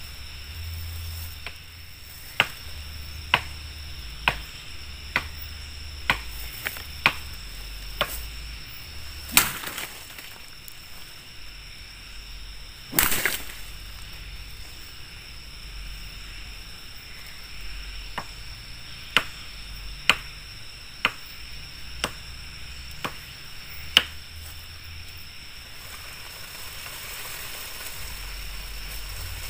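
A series of sharp knocks about once a second, in two runs, with one longer, louder knock near the middle, over a steady low rumble and a thin, steady high-pitched tone.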